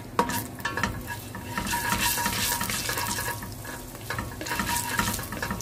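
Spatula stirring and scraping cumin and carom (ajwain) seeds around a pot of hot oil while the seeds sizzle and crackle: the tempering (tadka) stage.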